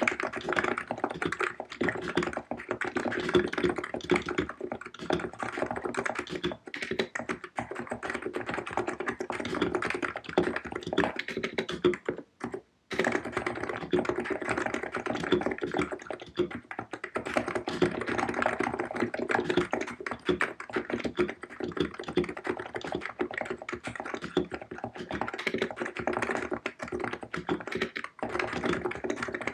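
Cox Empress electro-capacitive keyboard with 50 g keys, typed on quickly and continuously in dense runs of keystrokes. There is a brief pause about twelve seconds in.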